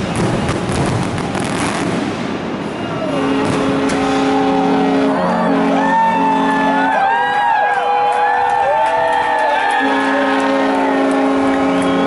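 Fireworks crackle and bangs tailing off, then from about three seconds in many boat horns and whistles sounding together: long held tones at several pitches overlapping, with rising-and-falling whistle glides above them.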